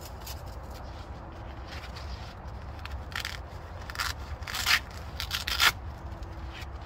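Steel plates of a folding OneTigris camp stove scraping and rubbing against each other as it is folded flat and slid into its canvas pouch. Several short scrapes come about three to six seconds in.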